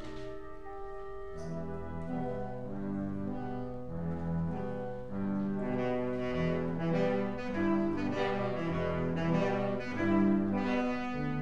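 A string orchestra of violins playing a slow piece in long sustained notes. Lower parts join about a second and a half in, and the music swells gradually louder toward the end.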